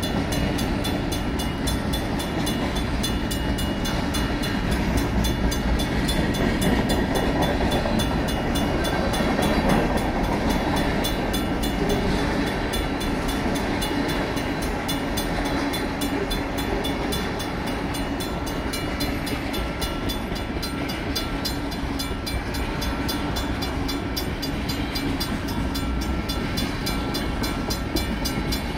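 Freight cars of a mixed freight train rolling steadily through a grade crossing, wheels rumbling on the rails. Over it the crossing's Safetran mechanical bell rings in fast, even strokes.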